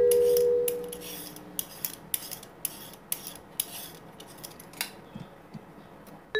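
Hand-held vegetable peeler stripping the fibrous skin off celery stalks: a run of short, crisp scrapes, about two or three a second.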